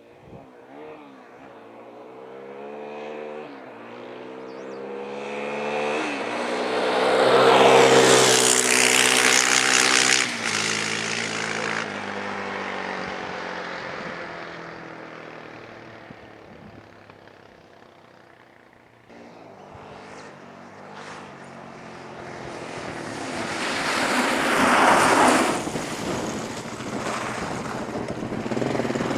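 2003 Suzuki LTZ 400 quad's single-cylinder four-stroke engine in a drive-by: it builds up and passes loudest about eight seconds in, drops in pitch and fades away, then passes again about twenty-five seconds in.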